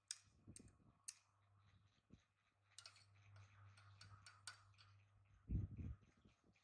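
Faint scattered clicks and light taps, with a single dull low thump about five and a half seconds in.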